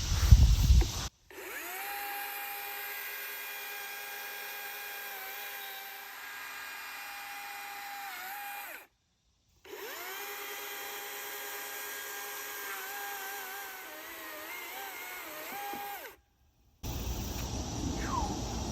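Chainsaw running at high revs and cutting through a log, its pitch sagging and wavering as the chain bites. It comes in two stretches of about seven seconds, each cut off abruptly by a short total silence, after a loud low rumble in the first second.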